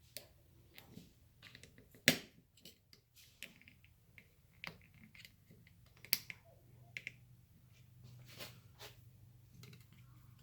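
Screwdriver prying and clicking at the end cap of a 1971 Buick Skylark seat belt retractor: scattered small clicks and snaps as the cap is worked loose around its edges, the sharpest snap about two seconds in and another about six seconds in.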